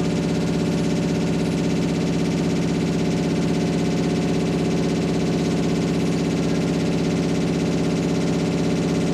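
Washing machine running with a steady, loud electronic-sounding drone rich in overtones, over a fast, even low pulsing.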